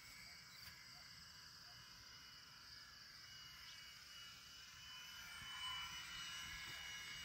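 Faint, steady drone of a small propeller plane's engine flying past, growing a little louder about five seconds in.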